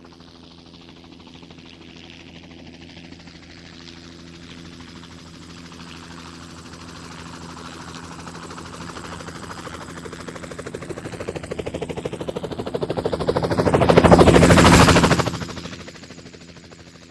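Helicopter flying past: fast rotor chop that grows slowly louder, peaks close by about fourteen seconds in with a falling whine, then fades quickly as it moves away.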